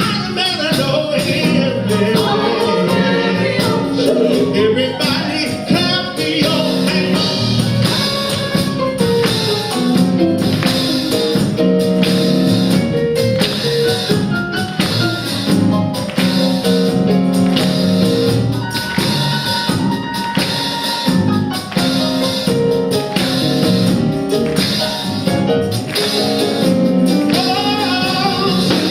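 Gospel choir singing live with instrumental accompaniment and a steady percussion beat.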